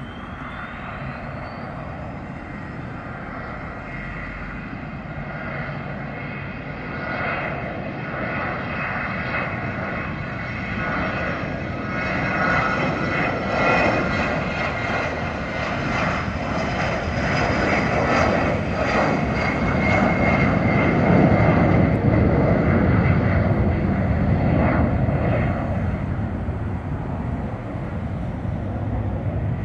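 A 1988 BAe 125-800A business jet's two Garrett TFE731 turbofan engines on a takeoff run: a high whine rises in pitch over the first couple of seconds as the engines spool up to takeoff thrust, then a steady jet noise with high whining tones grows louder along the runway, loudest a little past the middle, and carries on as the jet lifts off and climbs near the end.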